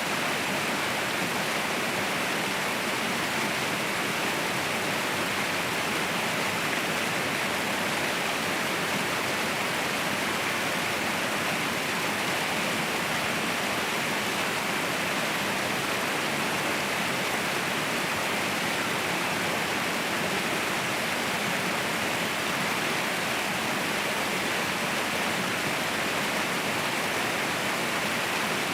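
Mountain waterfall roaring: a steady rush of falling water, even throughout with no change.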